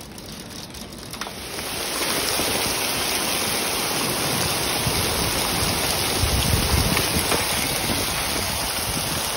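Hail and heavy rain pelting a wooden deck and backyard, a dense steady hiss that grows louder about two seconds in. A low rumble swells briefly around six seconds in.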